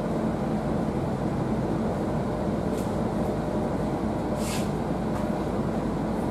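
MAN ND323F bus's 320 hp MAN D2066 diesel engine and driveline running steadily under way, heard from inside the passenger cabin along with tyre noise on a wet road. A brief hiss cuts in about four and a half seconds in.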